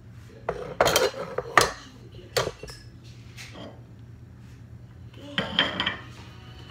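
Ceramic dishes clattering as a bowl and plate are handled and set down: a few sharp knocks and clinks in the first couple of seconds, then a short clatter near the end.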